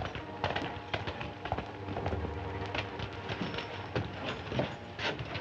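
Hoofbeats of several horses clip-clopping on hard ground, a quick irregular run of knocks as riders come in.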